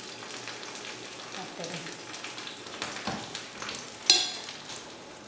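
Pan-fried banana leaf crackling and rustling as a fish parcel is pulled open by hand, with scattered small crackles and one sharp click about four seconds in.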